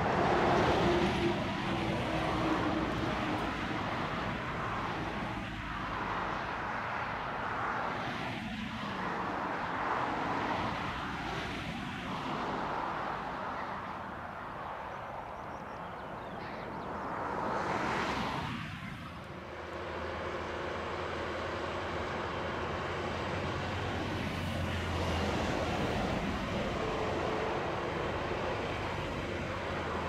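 John Deere 7830 tractor's six-cylinder diesel engine running steadily under load while ploughing, heard as a continuous drone. A broad whooshing swell rises and fades about eighteen seconds in.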